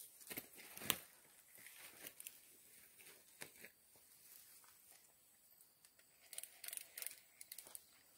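Near silence broken by faint, scattered rustles and clicks, with a sharper click about a second in and a short cluster of rustling between six and seven seconds in.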